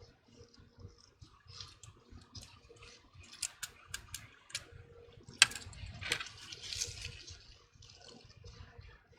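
Small irregular clicks and taps of tools and small phone parts being handled during repair work. The sharpest click comes about five and a half seconds in.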